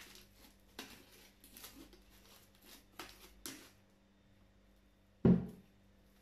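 Glue-and-beer slime squelching and tearing in a few short bursts as it is kneaded and pulled apart by hand. About five seconds in, a single dull thump, the bowl being set down on the table.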